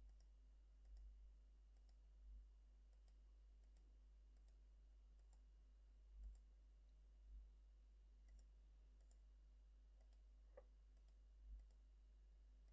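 Near silence broken by about seven soft, irregularly spaced computer mouse clicks as points are placed one by one.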